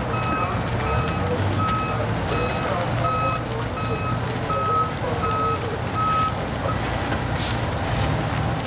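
A vehicle's reversing alarm beeping steadily, about three beeps every two seconds, stopping after about six seconds. Under it runs the steady low drone of a fire apparatus engine.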